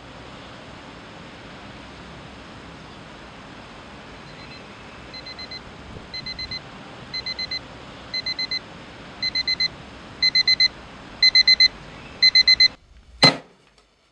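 Digital alarm clock beeping in quick groups of four, about once a second, getting louder with each group over a steady hiss. The beeping and hiss cut off suddenly, and a single sharp thump follows.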